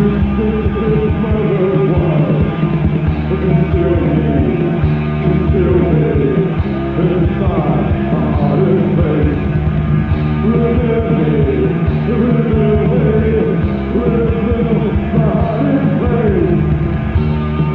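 Goth rock song with a voice singing over a rock band, sounding muffled with little treble.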